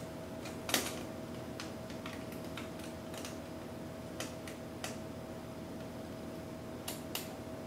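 Scattered small metallic clicks and taps from a CPU socket's load plate and retention lever being handled and closed down over the processor, with one sharper click about a second in and two more near the end. A faint steady hum runs underneath.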